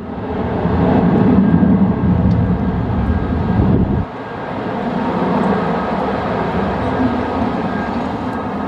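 Jet engines of an Airbus A320-family airliner running loud and steady as it rolls out after touchdown on a rain-soaked runway, mixed with rain and wind noise. The low rumble drops suddenly about four seconds in, then carries on more evenly.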